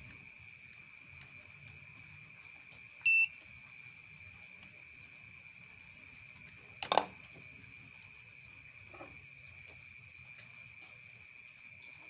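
A single short electronic beep about three seconds in, and a sharp plastic click or knock near the middle as the washing machine's white plastic switch part and its wiring are handled. A steady high-pitched insect chirr runs underneath.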